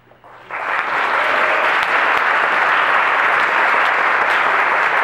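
Audience applauding, breaking out suddenly about half a second in and then holding steady.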